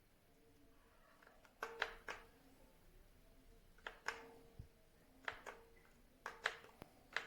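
Faint sharp clicks and taps in quick pairs and threes every second or two, with a low thump near the middle, from something hard being handled in a small room.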